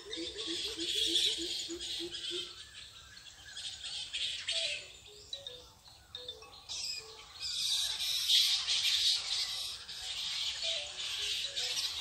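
A roosting colony of fruit bats (flying foxes) in a tree, chattering and squabbling in a dense, high-pitched mass of squeaks and squawks. For the first couple of seconds a low note repeats evenly, about four times a second, then stops.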